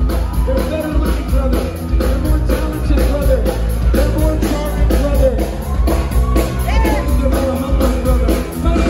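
Ska-punk band playing live: singing over electric bass, guitar and a drum kit keeping a steady fast beat.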